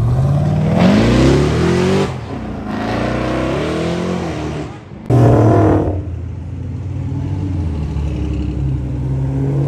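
Car engines revving hard and accelerating away, each rev climbing in pitch. The sound breaks off abruptly about two seconds in and again about five seconds in. From about six seconds in there is a steadier engine sound of cars driving past.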